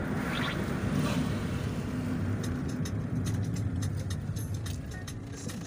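Road and engine noise of a car driving, heard from inside the cabin: a steady low rumble. From about halfway through, faint sharp ticks come in over it.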